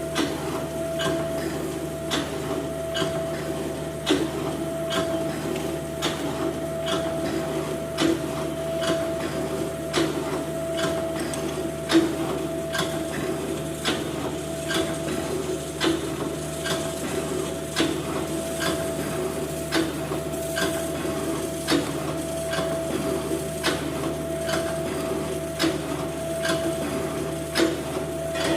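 Metal shaping machine (shaper) running: a steady motor hum with a sharp click or knock at each stroke of the ram, about once a second.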